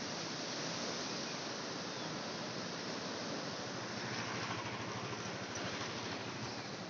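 River in flood: fast, muddy water rushing past with a steady, even roar of moving water.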